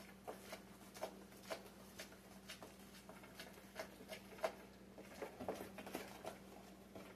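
Irregular light clicks and taps of kitchen utensils and containers being handled, a couple to a few a second, over a faint steady hum.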